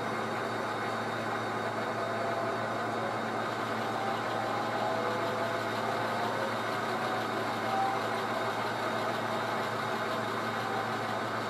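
HO scale model diesel locomotive running with a steady diesel engine sound as it pulls a string of freight cars slowly through the yard.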